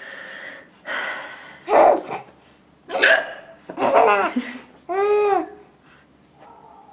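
A woman hiccuping, with laughter mixed in: about four loud, short hiccup-and-laugh bursts roughly a second apart, with breathy sounds between them.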